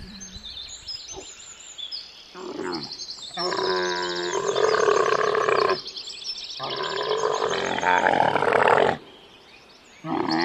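A large farm animal calling loudly: a short call, then two long harsh calls of a couple of seconds each, then a brief lull.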